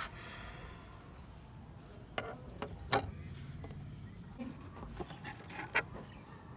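Scattered sharp clicks and knocks over a low steady rumble, about a dozen irregular handling sounds, loudest about three seconds in.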